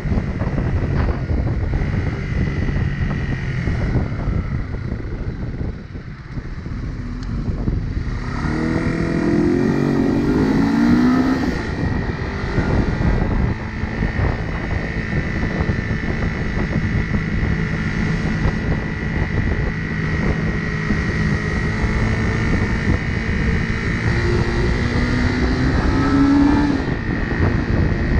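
A 1977 Honda CB125 twin's four-stroke parallel-twin engine running under way, with wind buffeting the microphone. The engine eases off about six seconds in, then its revs climb from about eight seconds and rise again near the end.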